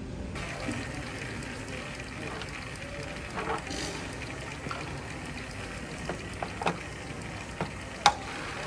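Light clicks and knocks of a track bike being handled and mounted, over a steady background hiss; the sharpest click comes near the end.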